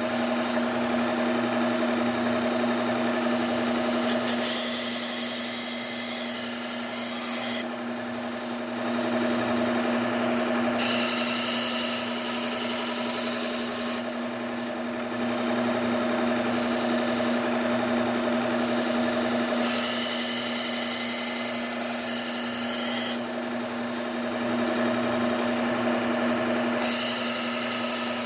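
Bucktool low-speed belt sander running steadily on a Cubitron 120 belt, with a knife blade drawn across the belt in about four passes of roughly three seconds each, each pass adding a grinding hiss over the motor hum. This is the edge-setting stage that raises a burr.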